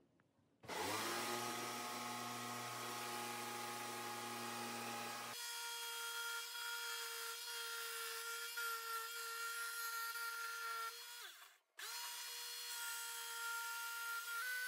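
Electric hand planer, clamped upside down on the bench, starting up with a rising whine about a second in, then running steadily as a board is pushed across its cutter. The sound cuts out for a moment about two thirds through and picks up again.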